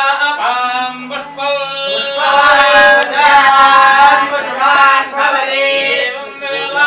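Sanskrit hymn chanting, sung in long held notes that rise and fall.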